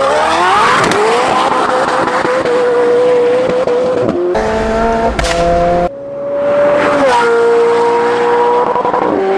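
McLaren 720S twin-turbo V8 through free-flow downpipes and a non-valved titanium double X-pipe exhaust, revving hard to a very high-pitched wail and holding there. It climbs and holds twice, with abrupt cuts between separate clips.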